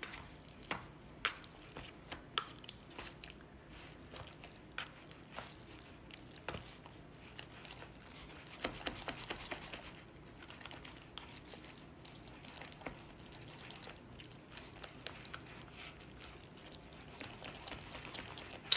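Scattered small clicks, taps and rustling from hands handling takeout food containers and chopsticks, with a busier stretch of rustling about halfway through.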